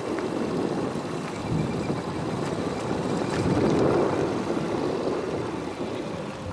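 Wind buffeting the microphone of a moving camera: a steady rumbling rush with no distinct events.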